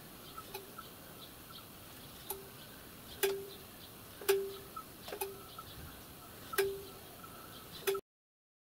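Sharp metallic clicks, about seven of them at uneven intervals, each with a brief ring, from a boiler hand pump being worked slowly to raise a miniature steam locomotive's boiler to 1.5 times working pressure for its hydraulic test. The sound cuts off abruptly near the end.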